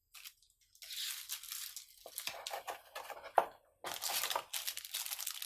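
Plastic packaging crinkling and rustling as it is handled, in two stretches with a sharp click between them.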